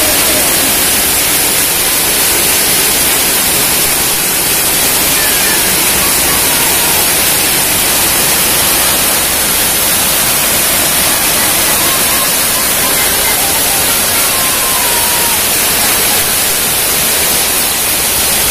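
Heavy rain pouring down onto tiled roofs and a concrete yard: a loud, steady, even hiss.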